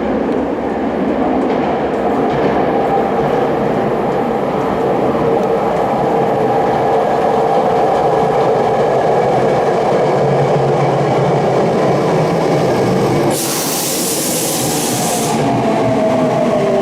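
Tokyu Oimachi Line electric train running, its VVVF inverter and traction motors singing in steady tones over the rolling noise. A loud hiss of air lasts about two seconds late on. Near the end the tones begin to fall in pitch as the train slows.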